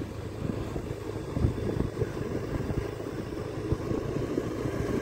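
Motorcycle running along a road with a steady low engine rumble, mixed with wind buffeting on the microphone as it rides.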